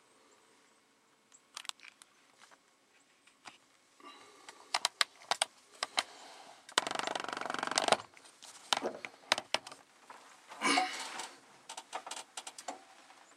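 Clicks, knocks and rustling from a camera being handled and turned around inside a small wooden hunting blind, with a longer scraping rustle about seven seconds in and another shortly before the end.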